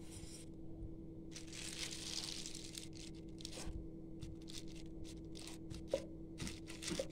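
Oiled plastic cover crinkling and rustling as a ball of dough is pressed flat through it with a cup: a longer rustle in the first few seconds, then a run of short crinkles. A faint steady hum sits underneath.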